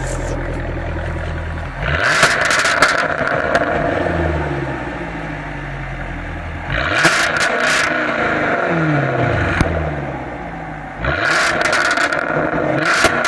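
Jaguar F-Type V8 S's supercharged 5.0-litre V8 exhaust idling and blipped three times, roughly every four and a half seconds. Each blip rises suddenly and then falls back in pitch to idle, with a few sharp cracks from the exhaust.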